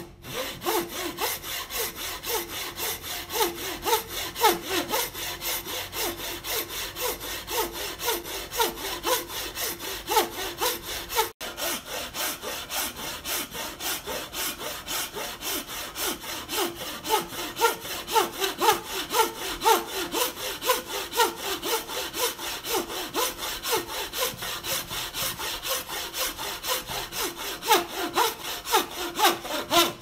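Thin, fine-toothed hand saw cutting across a wooden block in steady back-and-forth strokes, about two a second, with a momentary break about eleven seconds in.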